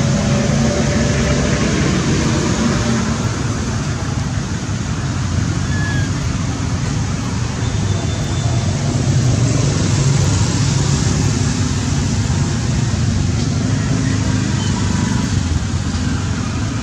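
Steady, loud rushing background noise, heaviest in the low range, with no clear separate events.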